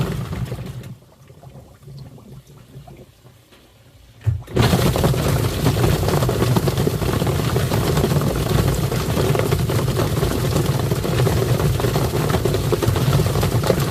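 Twin-tub washing machine's wash motor running and churning water in the tub, a steady hum under splashing. It winds down about a second in and starts up again abruptly about four and a half seconds in.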